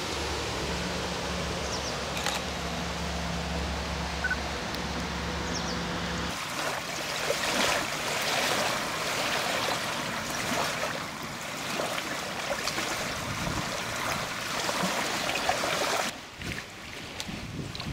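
A steady hiss with a low hum for about the first six seconds. Then choppy lake water laps and splashes irregularly against a stony shore as small wind-driven waves break, easing off near the end.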